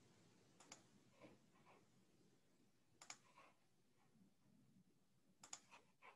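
Near silence, broken by a few faint, sharp clicks of someone working a computer, some single and some in quick pairs, a couple of seconds apart.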